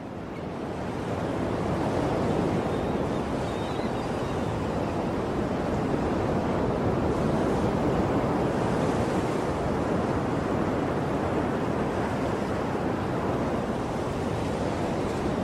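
Steady noise of sea waves and wind, fading in over the first couple of seconds.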